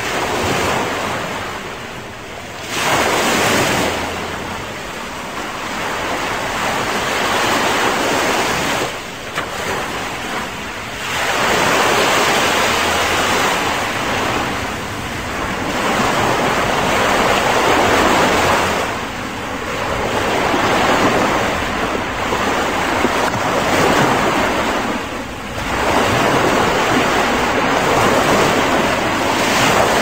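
Ocean surf breaking on a sandy beach and washing up the sand, the sound swelling and easing every few seconds as each wave comes in.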